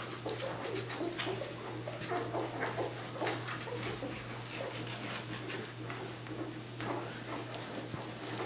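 A litter of nine-day-old Labrador retriever puppies nursing: a busy, continuous run of small squeaks, grunts and suckling noises, over a steady low hum.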